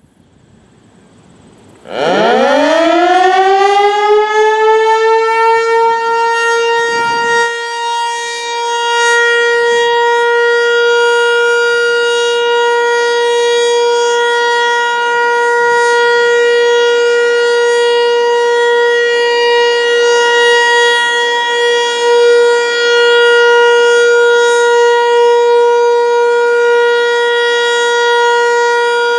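American Signal Corporation T-121 electromechanical outdoor warning siren starting up about two seconds in. Its single tone winds up quickly in pitch, then holds one steady wail: the Alert signal.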